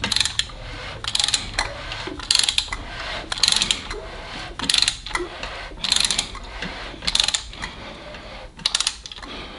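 Socket ratchet with a pipe extension clicking in short runs about once a second, as it is swung back between pulls that turn a 440 Mopar V8's crankshaft over by hand to spread assembly lube over the timing chain.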